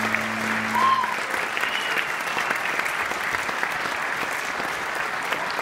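Audience applauding with steady, dense clapping. A steady low hum stops about a second in.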